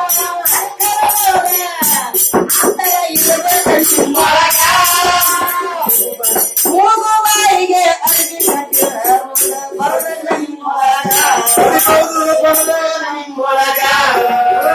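Kannada gigi pada folk song: several voices singing together, a woman leading with men joining, over a large hand-beaten frame drum and small hand cymbals clashing in a steady rhythm.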